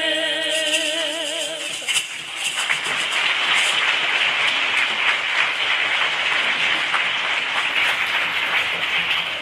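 A group of singers holds the last note of a Spanish Christmas song for about two seconds, then an audience applauds steadily for the rest of the time.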